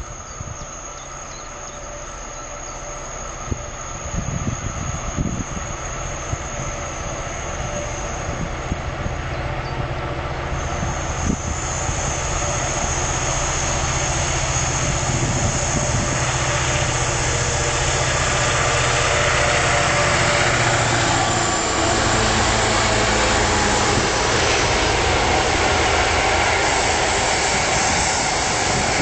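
NOHAB-built GM diesel-electric locomotives (DSB MX and MY classes) approaching at the head of a freight train. The engines' steady drone grows louder over the first twenty seconds or so, then the wagons roll past with a steady rushing rumble. Wind buffets the microphone in the first few seconds.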